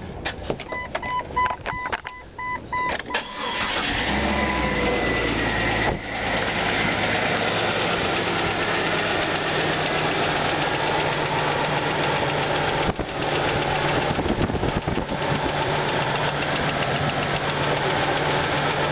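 Beeping chime and clicks, then the 2000 Jeep's engine cranks and catches about three and a half seconds in and runs steadily, with the engine knock it is being shown for.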